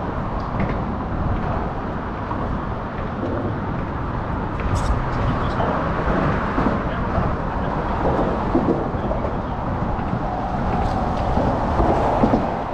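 Steady wind buffeting the microphone, with choppy water slapping around a small boat's hull.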